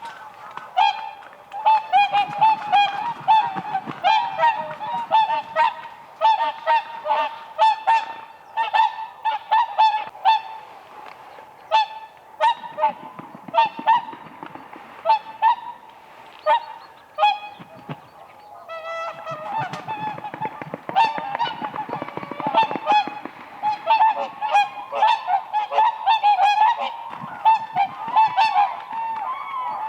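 Whooper swans calling: many loud honking calls from several birds, overlapping in quick runs, thinning out for a few seconds around the middle before crowding in again.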